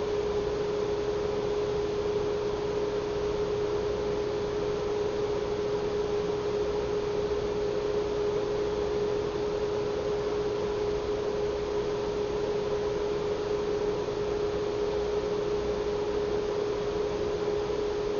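A steady hum at one mid pitch over an even hiss, with no other sound.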